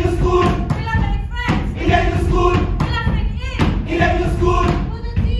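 Group of voices singing or chanting a repeated phrase over a steady thumping beat, about two thumps a second.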